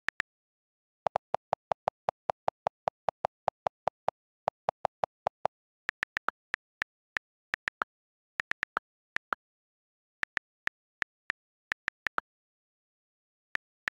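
iPad on-screen keyboard click sounds. About a second in comes a fast, even run of lower-pitched delete-key clicks, about five a second for some four seconds, as text is erased. Then come irregular, higher-pitched letter-key clicks as new words are typed.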